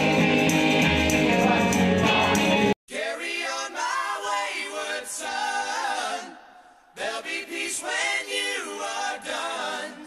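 Live music, a man singing to acoustic guitar, cuts off abruptly about three seconds in. Then voices sing unaccompanied, thin-sounding, in two phrases that each fade away.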